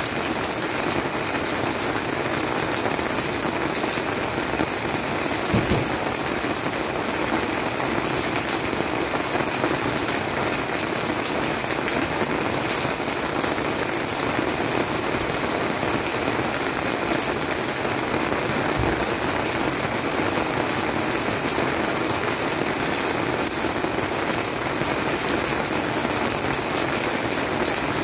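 Steady monsoon rain pattering on leafy garden plants, with two brief dull knocks.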